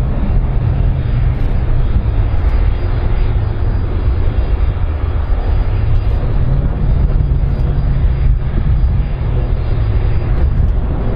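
Airbus A310-304's twin turbofan engines running as the airliner rolls along the runway: a loud, steady, deep rumble.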